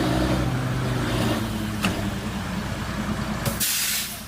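Truck engine running steadily, with a short burst of hiss about three and a half seconds in, after which the engine sound is quieter.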